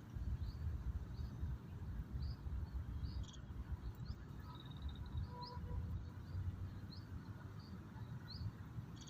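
A bird giving short, high, rising chirps about once a second, over a steady low rumble.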